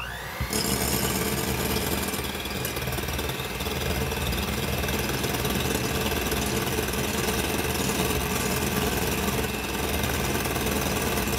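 Hamilton Beach electric hand mixer switching on with a brief rising whine, then running steadily as its beaters whisk raw egg whites in a glass bowl, the first stage of beating them to a froth.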